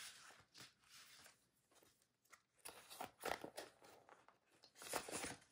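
Faint rustling and crinkling of a folded paper poster being handled and unfolded, a little louder from about three seconds in and again near the end.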